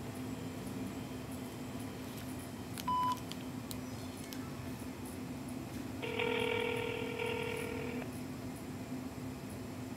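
Telephone ringback tone heard through a phone's speaker while a call rings out: a short high beep about three seconds in, then one two-second ring about six seconds in, over a steady low hum.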